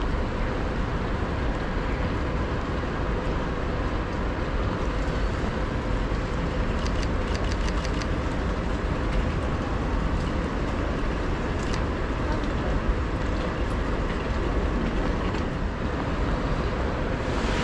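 Steady noise of a city street in heavy rain: rain hiss mixed with a constant low traffic rumble, with a few faint ticks around the middle.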